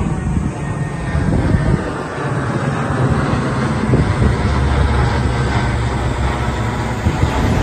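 Four-engine turboprop aircraft flying low overhead: a loud, steady engine and propeller drone that gets deeper and heavier about halfway through.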